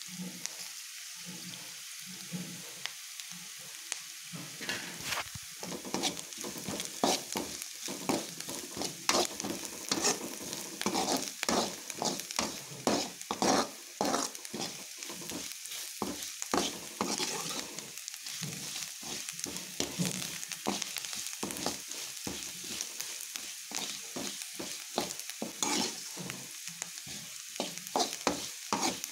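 Chopped onions, green chillies and curry leaves sizzling steadily in hot oil in a pan while a metal spatula stirs them, its scrapes and taps against the pan coming thick and fast from about five seconds in. This is the tempering for chitranna, just coloured with turmeric.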